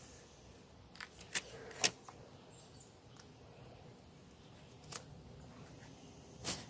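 About five light, sharp clicks and taps, spread out over a few seconds against a quiet background.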